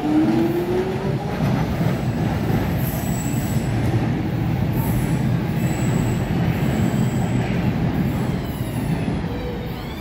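London Underground 1996 Tube Stock Jubilee line train departing: its traction motors whine rising in pitch as it pulls away, then the rumble of its wheels on the track fades as it leaves. Near the end a higher rising whine begins.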